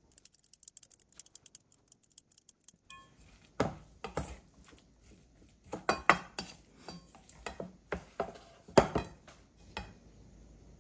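Dishes and utensils clinking and knocking, about a dozen sharp knocks over several seconds. These follow a few seconds of light, rapid ticking.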